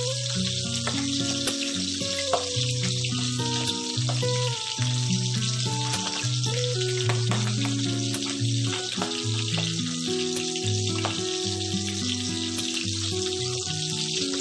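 Milkfish (bangus) steaks frying in hot oil in a pan: a steady sizzle with scattered spattering pops. Background music with held low notes plays under it.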